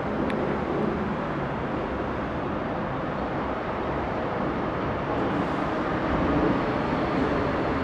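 Tobu 70000-series electric train rolling slowly along the track, a steady rumble that grows a little louder about six seconds in.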